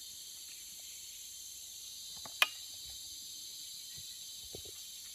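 Steady high-pitched insect chorus, with one sharp click about halfway through.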